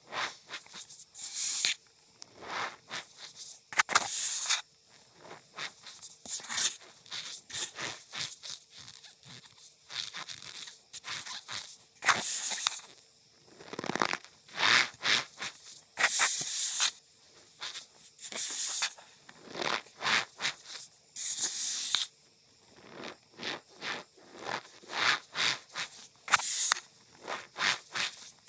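Cornstarch powder being squeezed and pressed by hand, giving squeaky crunches in an irregular run of short bursts, some about a second long.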